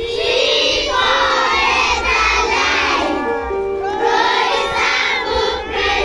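A crowd of children singing and shouting together, many voices at once, loud and lively, with some notes held longer from about halfway through.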